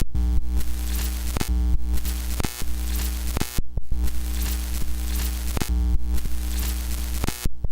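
Background music: an electronic hip-hop beat with deep bass and regular drum hits and no vocals, dropping out briefly a little past halfway.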